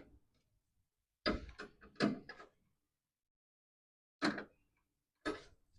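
Sharp knocks and clanks of hand tools working on the brake master cylinder and its line fittings: a quick cluster of several knocks, then two single knocks a second apart.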